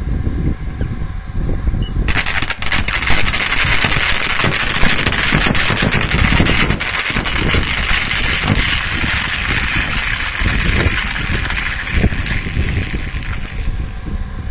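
Electric arc on a high-voltage transmission line, crackling loudly in a dense rapid run of sharp cracks. It starts over a low rumble, comes on hard about two seconds in, and eases off near the end.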